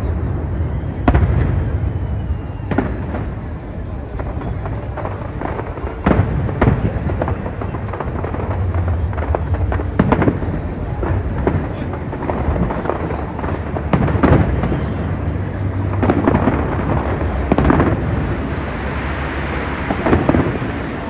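Fireworks display in full swing: irregular sharp bangs, several close together at times, over a continuous low rumble.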